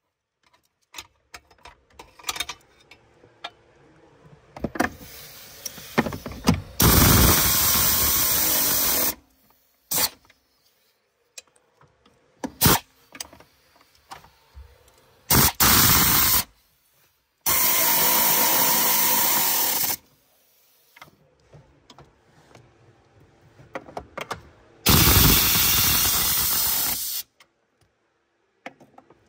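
Pneumatic air ratchet running in several bursts of one to two and a half seconds, driving the pedal box mounting nuts tight, with short clicks and knocks of the tool and socket between bursts.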